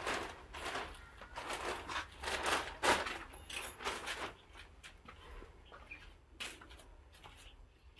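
Polythene sheeting rustling and crinkling in irregular bursts as it is wrapped over straw mushroom beds, thinning to a few faint rustles after about four seconds.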